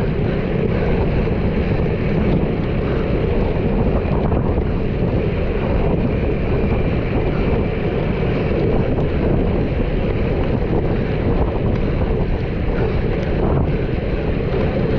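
Steady roar of wind buffeting the microphone at speed, with a continuous low rumble and a few faint clicks.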